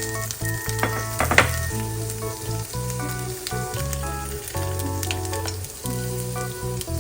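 Food sizzling and frying in a hot pan, a steady hiss with scattered crackles and a sharper, louder crackle about a second and a half in, over background music.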